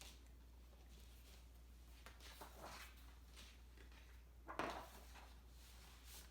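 Near silence: quiet room tone with a low hum, broken by one brief soft rustling noise about four and a half seconds in.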